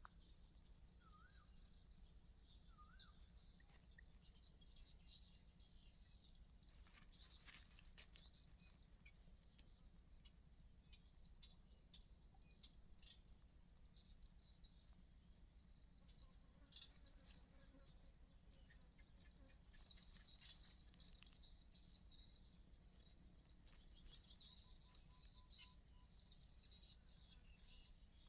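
Small birds chirping: a quick run of about seven sharp, high chirps a little past the middle, over a faint, steady, high-pitched background with a few scattered softer chirps.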